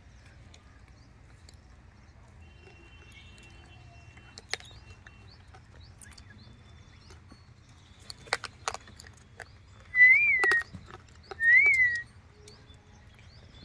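Two loud whistled notes about a second and a half apart, each a short pure tone that rises and then falls in pitch. A few sharp clicks and taps come before them.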